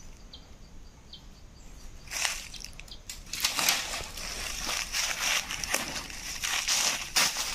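Footsteps crunching and crackling through dry leaf litter and brush, starting about two seconds in after a quieter moment with a few faint high peeps.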